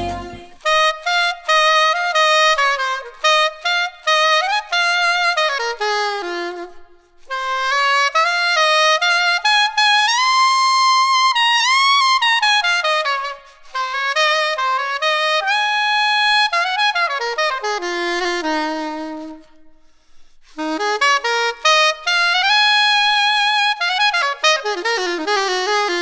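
Yanagisawa SC-992 bronze curved soprano saxophone playing a melody alone, without backing track, in phrases with short gaps between them, with a little reverb and gentle compression, recorded through a Neumann KM 56 microphone.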